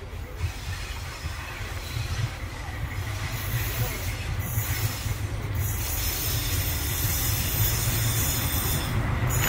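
A diesel locomotive hauling a train of passenger coaches approaches, its engine rumble and the rolling of wheels on rail growing steadily louder.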